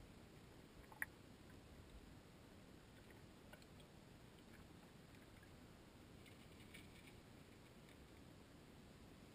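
Near silence: faint underwater ambience, a low hiss and rumble with scattered small clicks and ticks. One sharper click comes about a second in, and a few faint ticks cluster later on.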